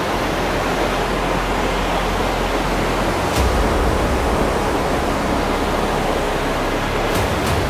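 Mountain waterfall: a loud, steady rush of falling water, with a few faint clicks about halfway through and near the end.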